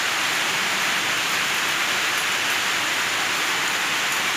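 Beaten egg sizzling steadily as it fries in hot margarine in a pan.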